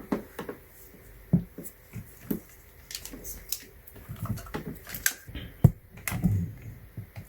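Scattered small plastic clicks and light knocks of a USB-C cable and plugs being handled and pushed into a power strip. The sharpest click comes about a second and a half before the end.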